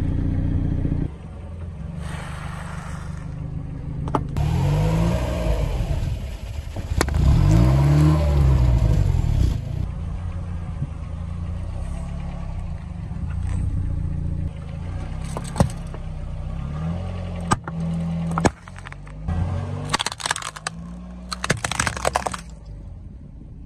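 A car engine running slowly, revving up and down twice in the first half, as the tyre rolls over and crushes small objects such as a chocolate bar and a rubber toy on asphalt. Sharp cracks come through, and a burst of crunching near the end.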